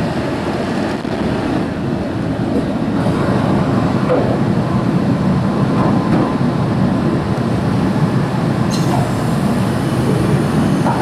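Steady low rumble of machinery running, with no pauses or beat.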